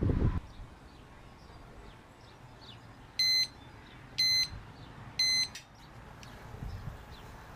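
Three short electronic beeps, evenly spaced about a second apart, after a brief low thump at the start.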